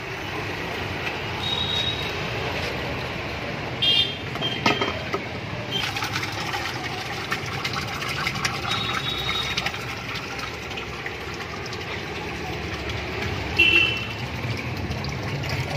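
Thick spiced buttermilk pouring in a steady stream from a large aluminium pot into a plastic drum of water, splashing into the liquid. A couple of brief louder knocks come about four seconds in and near the end.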